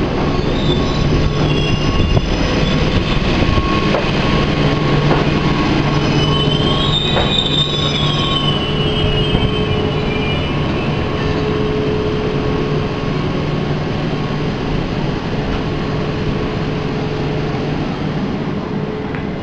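English Electric DM/D class electric multiple unit running along the platform, with a steady low hum and running noise. A high-pitched wheel squeal rises and falls, strongest around the middle.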